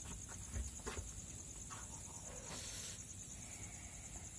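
A steady, high-pitched chorus of night insects trilling, with a few faint knocks and a short rustle about two and a half seconds in.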